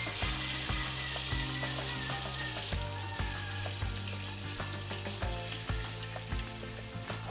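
Beaten egg and crab meat poured into hot soybean oil in a wok, sizzling steadily as the egg puffs up and deep-fries.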